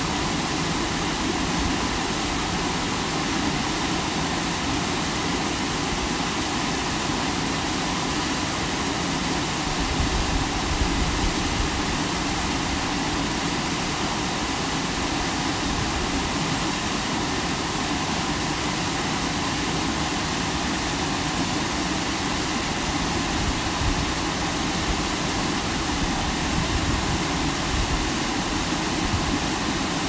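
Steady, unbroken rush of a waterfall's falling water.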